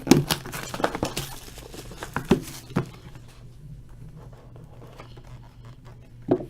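Packaging of a sealed trading-card box being torn open and handled: a quick run of crinkles, tearing and sharp clicks in the first few seconds, then quieter rustling and one sharp knock near the end.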